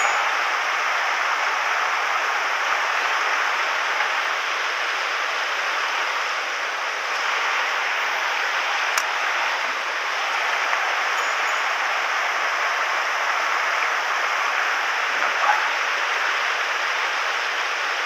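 Mountain stream rushing over a shallow, stony riffle: a steady hiss of running water.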